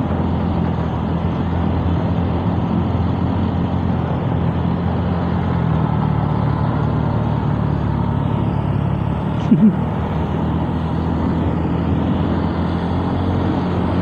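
Scooter riding along, heard from a handlebar-mounted camera: a steady engine hum mixed with wind and road noise. A short, loud blip stands out about nine and a half seconds in.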